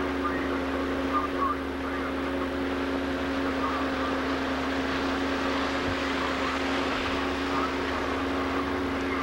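Boat engine running steadily under way, an even low drone with a steady rushing noise underneath, heard from on board.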